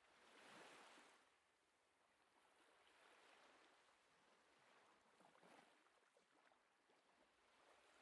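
Faint ocean surf, waves washing in and drawing back. The strongest swell comes about half a second in, with softer swells every two to three seconds after it.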